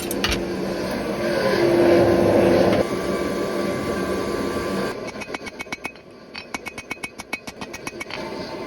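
A forge running with a steady noisy rush and low hum. About five seconds in it gives way to rapid, evenly spaced hammer strikes on hot steel, about seven a second.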